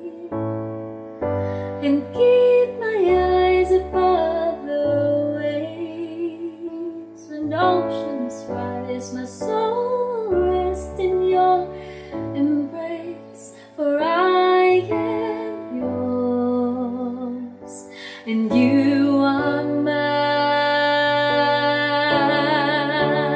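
A woman singing a slow English worship ballad over electronic keyboard chords, ending on a long held note with vibrato.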